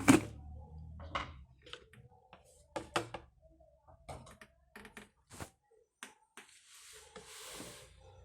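Handling noises around a top-load washing machine: a sharp knock at the start, then scattered clicks and knocks, and a short soft hiss near the end. A low hum under the first second and a half stops.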